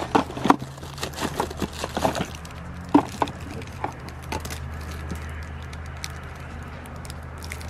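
Plastic bottles and cardboard packaging knocking, clicking and rustling as a gloved hand sorts through a cardboard box of toiletries. The knocks come thick for the first few seconds and then thin out, over a steady low hum.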